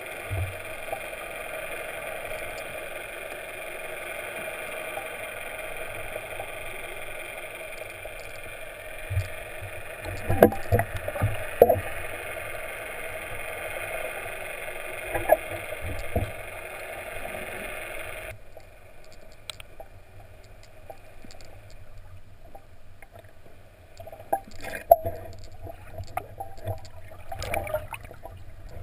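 Muffled underwater hum of a boat engine running steadily, cutting off abruptly about two-thirds of the way through, with scattered sharp knocks and clicks. Near the end comes splashing and sloshing at the water's surface.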